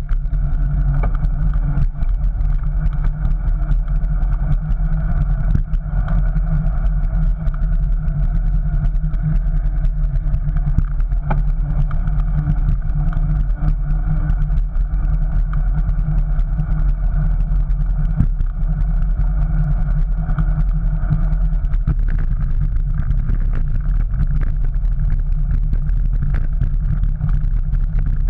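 Steady low rumble of a bicycle riding over stone paving, with many small rattling clicks throughout.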